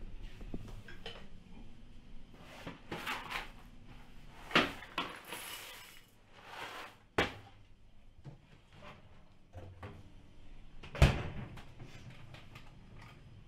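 Kitchen crockery and cereal boxes being handled: a few sharp knocks and clatters, the loudest about eleven seconds in, with stretches of rustling in between.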